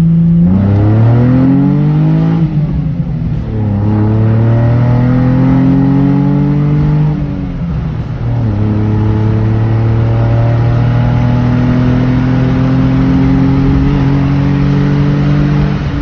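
Manual-gearbox Nissan Z's engine pulling hard under acceleration, its revs climbing in each gear. Upshifts about half a second, three seconds and eight seconds in, where the pitch drops before climbing again, the last gear climbing more slowly.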